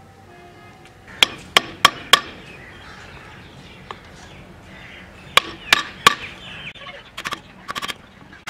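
Hammer blows on a steel chisel cutting into a wooden katana handle blank held in a bench vise, chopping out the slot for the blade's tang. There are four sharp strikes about a third of a second apart about a second in, three more about five seconds in, and lighter quick taps near the end.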